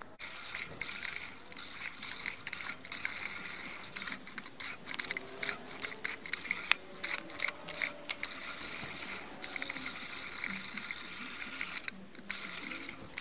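Great States 14-inch four-blade push reel mower rolling and cutting wet grass: the spinning reel whirs with rapid clicking, briefly stopping about twelve seconds in.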